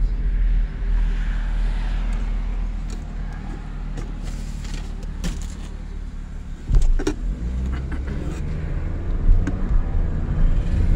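Engine and road rumble heard from inside a moving car, with a few sharp clicks and a knock about seven seconds in, after which the engine note is louder and steady.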